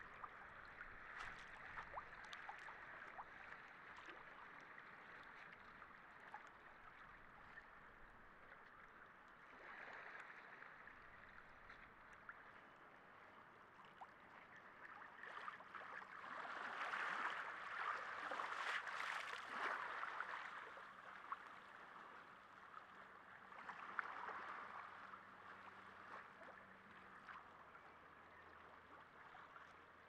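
Faint harbour water lapping and sloshing in small waves, with soft splashes; it swells louder for a few seconds in the middle.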